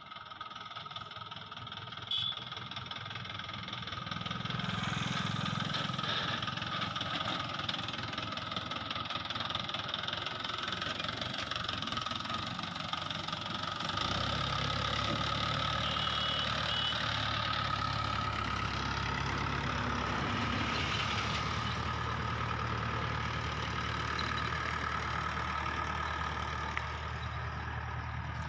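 Mahindra 575 DI tractor's four-cylinder diesel engine running steadily; a deeper engine note comes in abruptly about halfway through.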